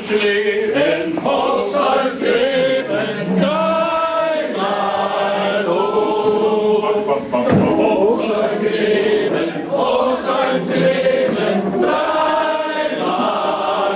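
A group of voices singing together, with long held notes.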